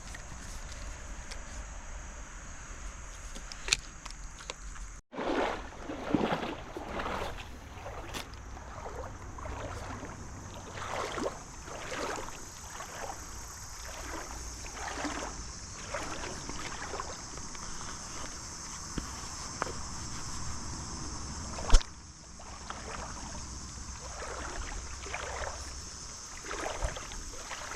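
Legs wading through a shallow creek, water sloshing and splashing with each step in an uneven rhythm. One sharp click about 22 seconds in.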